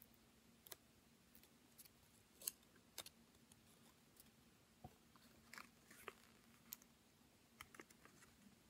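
Faint crinkles and sharp ticks of stiff printed origami paper being handled and pressed as the tail piece of a paper airplane is fitted into its slot, scattered and irregular, the sharpest about two and a half seconds in. A faint steady hum runs underneath.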